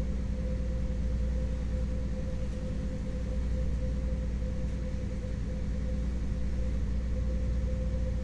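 A trawler-style motor yacht's inboard engine running steadily while under way, heard on board as a constant low drone with a steady higher hum above it.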